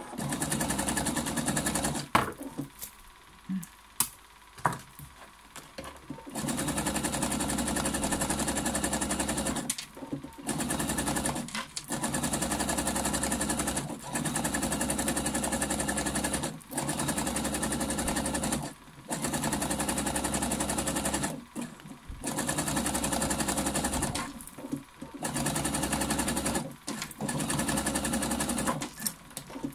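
Computerized sewing machine stitching through a coiled fabric-strip basket in repeated runs of one to three seconds, stopping briefly between runs as the coil is turned. Near the start there is a pause of about four seconds with a few clicks of handling.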